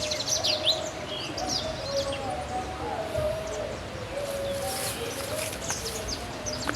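Birds chirping: short, high calls come and go, over a faint wavering lower tone and steady outdoor background noise.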